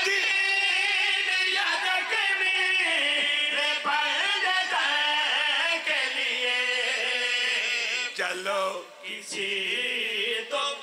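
Several men singing an Urdu devotional refrain in praise of Imam Hussain together through microphones, with long, wavering held notes. The singing thins out and breaks up about eight seconds in.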